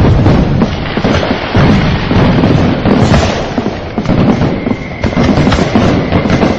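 Fireworks display: deep booms from aerial shells going off every second or two, over continuous crackling and popping.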